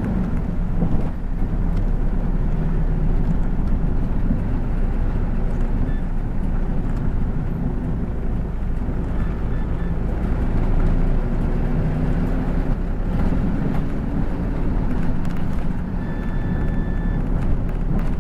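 City bus driving along a street, heard from inside the passenger cabin: a steady low rumble of engine and road noise.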